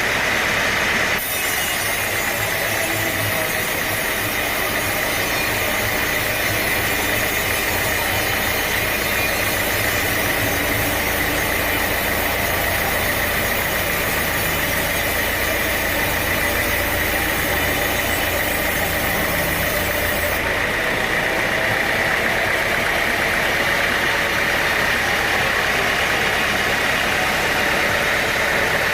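Sawmill machinery running steadily: an engine-like drone with a constant whine. A brighter hiss joins about a second in and drops away about two-thirds of the way through.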